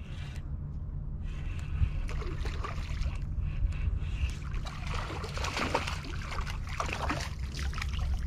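Hooked largemouth bass splashing in shallow water as it is reeled in to the bank. Irregular splashes come thickest past the middle, over a steady rumble of wind on the microphone.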